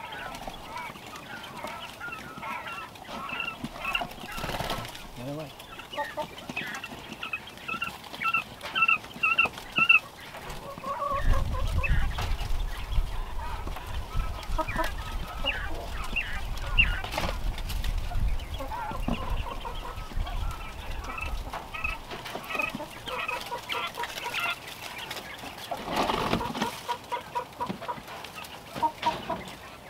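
Coturnix quail chirping and calling in many short, quick notes, with a few knocks from the plastic tote being handled and a low rumble for several seconds midway.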